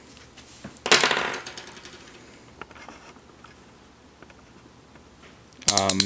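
Smith & Wesson Model 100-1 steel handcuff ratcheting: the single strand swings through the double strand in a fast, smooth run of metallic clicks about a second in, dying away within about half a second, then a few faint ticks. A short vocal sound comes near the end.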